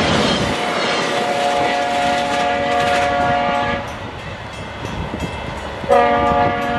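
Train horn sounding a long blast of several notes at once, then a second blast starting near the end. The rumble of passing rail traffic dies away in the first second.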